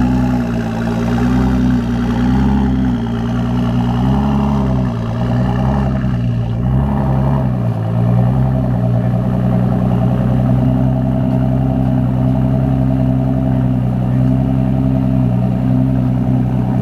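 Ford GT's twin-turbo 3.5-litre V6 running at low revs as the car rolls down a car-hauler ramp. The pitch rises and falls slightly under light throttle for the first several seconds, then holds steady.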